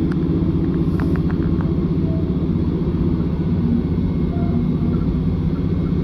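Steady low rumble of a Class 156 diesel multiple unit's underfloor Cummins diesel engine running, heard inside the passenger saloon. A few faint clicks come about a second in.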